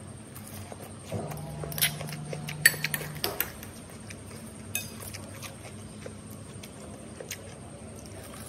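Metal spoon clinking and scraping against a small ceramic bowl of fried shallots and an oyster shell: a cluster of sharp clicks about two to three seconds in, then a couple of single clinks later. A low hum runs briefly under the first clicks.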